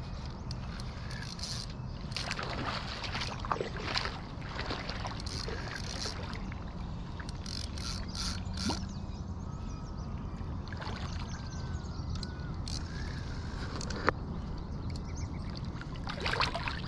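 Fishing reel being wound against a hooked fish, with bursts of sharp ratcheting clicks. Near the end, splashing as the hooked catfish thrashes at the surface.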